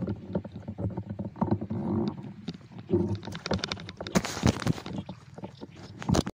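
Water sloshing and splashing close by as a wading fisherman works a net and handles a fish, with irregular small knocks and a louder stretch of splashing about four seconds in.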